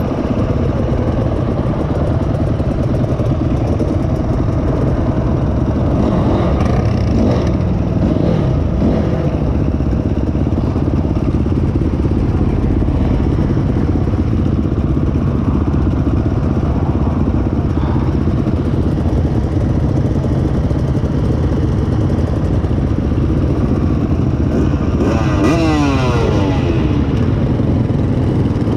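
Several trail-bike engines, including the Honda CRF250X four-stroke single carrying the camera, running at idle and low revs. Near the end one bike revs, its pitch sweeping and then falling away.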